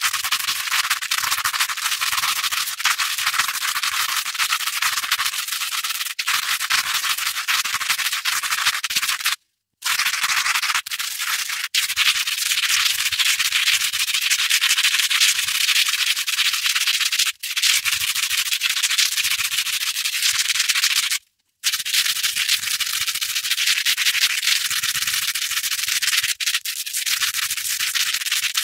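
Velcro hook tape scratched and rubbed against loop tape: a continuous, dense, crackly scratching that drops out to silence twice for a moment, about a third and three quarters of the way through.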